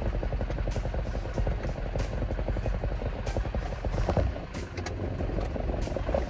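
Delivery truck's engine running with a low rumble and a fast, even pulse, with a few sharp ticks over it.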